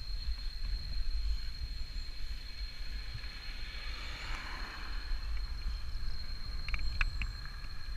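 Wind noise on the microphone during a mountain-bike ride, with a thin steady high tone throughout. A vehicle swells past about halfway through, and a few light clicks come near the end.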